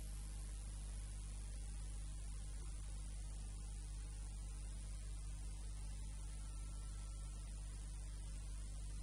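Steady electrical mains hum with a constant layer of hiss.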